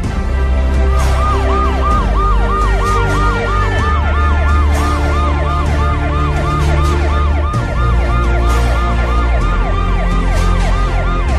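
Emergency siren in a fast yelp, each sweep dropping in pitch and repeating about three times a second, starting about a second in. It plays over background music with a steady bass line.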